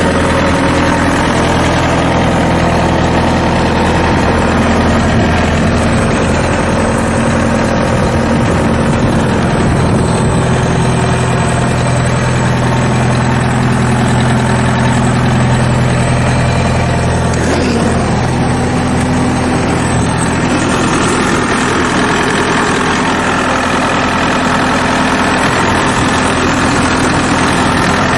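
Bobcat T190 skid steer's diesel engine running steadily at a constant speed; about two-thirds of the way through its tone shifts slightly.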